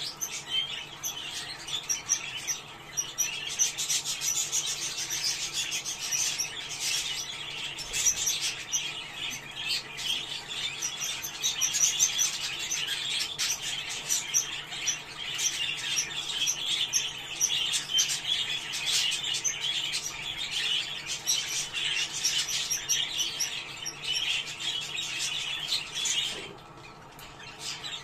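A flock of budgerigars chattering and warbling in a dense, unbroken stream of chirps, briefly falling quieter about a second before the end. It is the kind of budgie chatter played to pet budgies to bring them into breeding condition.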